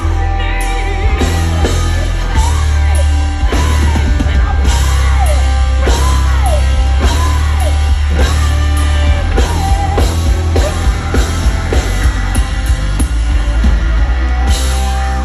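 Hard rock band playing live at full volume, with drums, while a woman sings in long screamed notes that swoop up and down in pitch.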